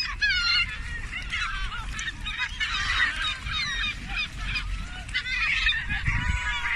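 A flock of gulls and geese calling over and over at once, many overlapping high, wavering cries, as they crowd in for thrown bread.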